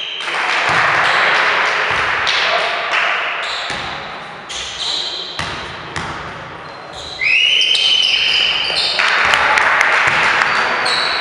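Sounds of a basketball game in a gym: players and bench calling out loudly, a ball bouncing on the hardwood floor, and a referee's whistle blown once for about a second, about seven seconds in.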